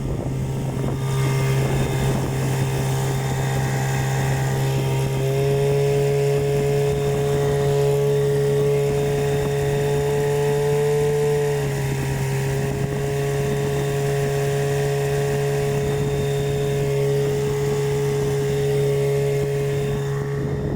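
Hidea 9.8 outboard motor running steadily during break-in, with a whistle riding over the engine note that steps up in pitch about five seconds in and falls back around twelve seconds. The whistle comes only at certain revs.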